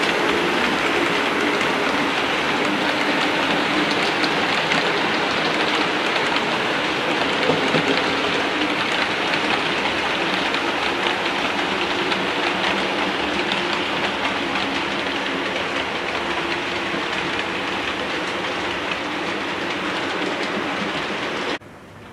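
Model trains running on a model railway layout: a steady rush and rattle of small wheels over the rails and pointwork, with a low steady hum under it. It cuts off abruptly just before the end.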